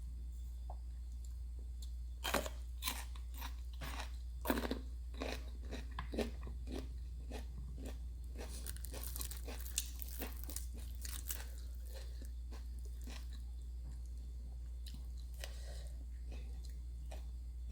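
A person biting and chewing crunchy fried food close to the microphone, a run of sharp crunches that thins out after about eleven seconds. A steady low hum runs underneath.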